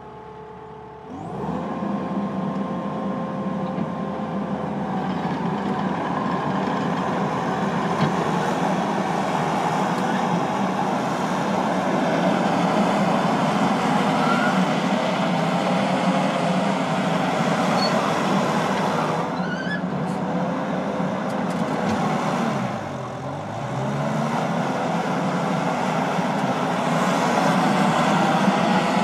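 Gehl CTL70 compact track loader's 81-horsepower turbo diesel engine starting up about a second in and then running steadily during a demonstration. About three-quarters of the way through, the engine speed briefly dips and comes back up.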